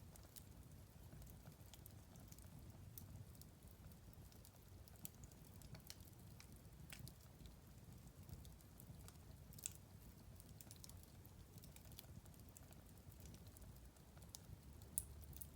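A wood fire crackling faintly, with scattered small pops and snaps at irregular times over a low, steady rumble of flame. A sharper pop comes about ten seconds in, and another just before the end.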